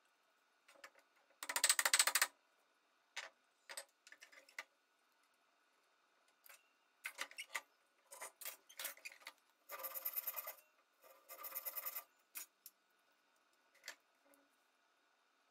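Three short bursts of rapid saw strokes from a fine-toothed Japanese-style pull saw cutting small wooden wedges flush with a board, with scattered light clicks and taps of wooden pieces being handled between them.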